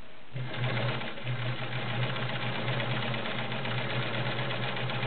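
Kenmore Model 1750 all-metal sewing machine with its 1.2 amp motor, running steadily and stitching through thin sheer nylon. It starts up about a third of a second in.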